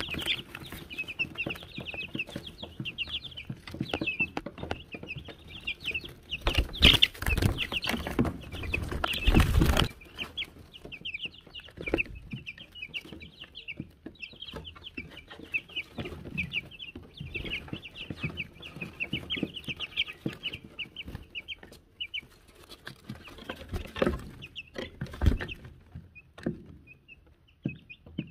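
A brood of Wyandotte chicks peeping without pause, many short high calls overlapping. Loud knocks and scuffs close to the microphone from about seven to ten seconds in, and a couple more thumps near the end.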